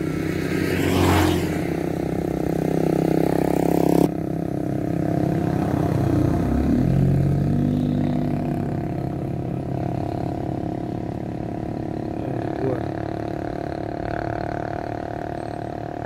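A motor vehicle engine running steadily at low speed, with a brief swell of noise about a second in.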